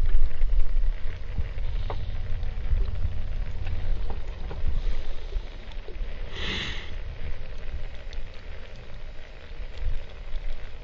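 Wind buffeting the microphone on an open boat, an uneven low rumble, with a short hiss about six and a half seconds in.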